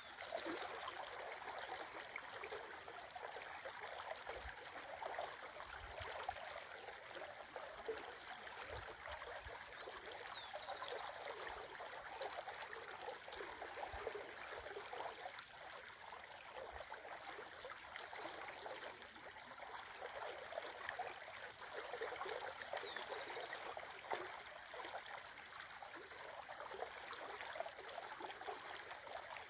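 Shallow river running steadily over a stony bed and around a fallen log, an even rush of rippling water.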